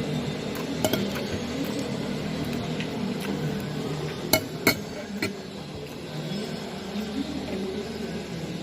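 Cutlery and dishes clinking during a meal: a few sharp clinks, the two loudest close together about halfway through, over a steady low background.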